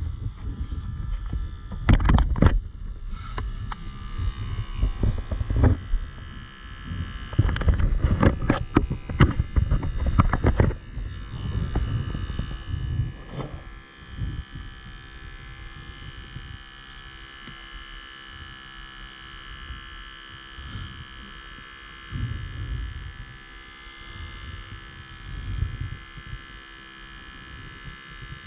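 Steady electric buzzing hum of a small battery-powered air pump. Over the first half, wind gusts rumble on the microphone, with a few sharp knocks.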